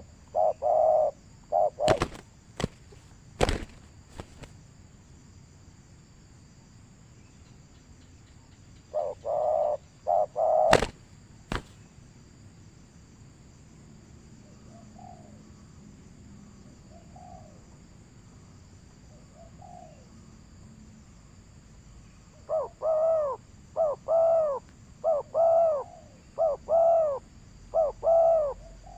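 A bird calling in runs of short, arched, hooting notes, faint and spaced out through the middle and then in a fast, loud run near the end. A few sharp clicks come early on and around the first run.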